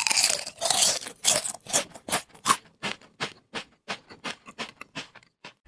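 Typing sound effect for an animated title: a short noisy rush, then a run of sharp key-like clicks about three a second that grow fainter towards the end.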